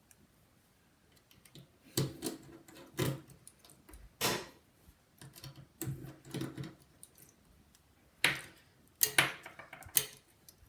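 Scattered sharp clicks and taps of a precision screwdriver and small metal parts against an iPhone 5's housing as it is unscrewed and taken apart. About a dozen irregular taps begin about two seconds in, the loudest near the end.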